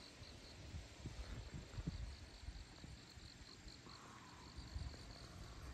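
Faint insect chirping, a high-pitched pulse repeating evenly, over irregular low rumbling.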